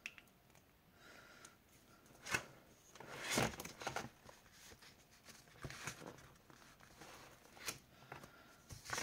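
Faint scratching of a pen writing on planner paper, mixed with soft rustles of the paper pages being handled, in irregular short bursts.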